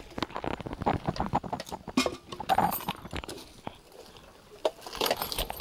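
Irregular light knocks and clatter of a tray of dishes and a small metal pot being handled and set down on the ground.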